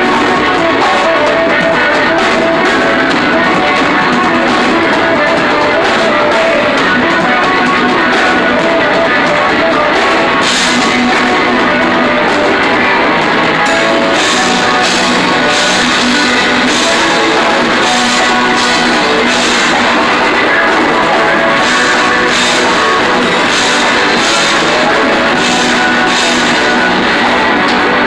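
Live rock band playing loudly: electric guitar, drum kit and saxophone. The cymbal strokes get busier from about ten seconds in.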